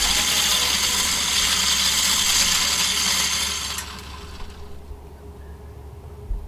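A gust of wind rustling through tall dry grass and brush, a loud even hiss that fades after about four seconds to a quieter, steady rush of wind.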